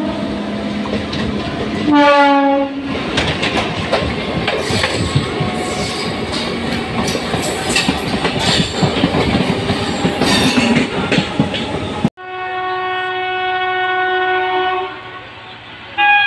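Indian Railways train passing at speed: a short horn blast that drops in pitch as it goes by, then about nine seconds of loud wheel clatter over the rail joints. After a sudden cut, another train horn sounds steadily for about three seconds, and a further horn starts at the very end.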